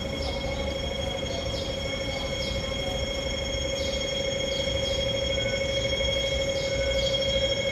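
Steady high whine made of several held tones, getting slightly louder near the end, with faint short chirps about once a second over a low background rumble.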